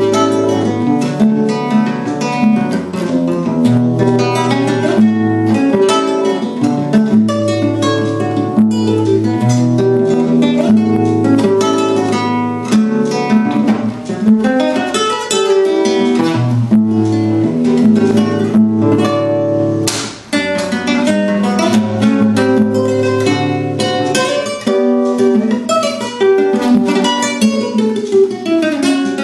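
Solo acoustic guitar playing a continuous run of plucked melody and chords, with a sharply struck chord about twenty seconds in.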